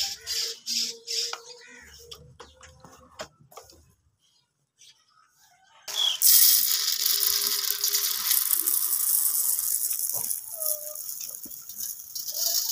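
A few clinks of steel dishes being set down. Then uncooked rice grains are poured from a plastic bag into a steel bowl, a steady hissing rattle that lasts for several seconds, with a brief chirp or cluck over it.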